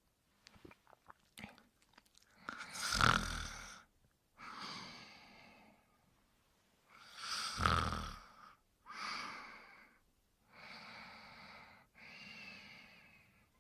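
Cartoon dog character snoring in his sleep. There are two loud snores, each followed by a long breathy out-breath, then two softer breaths near the end, one with a faint whistle.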